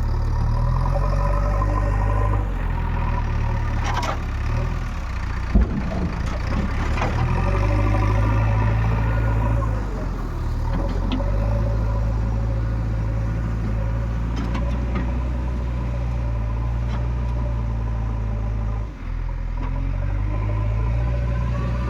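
Diesel engine of a JCB 3DX Eco backhoe loader running, its note and load shifting as it works, with a sharp knock about five seconds in.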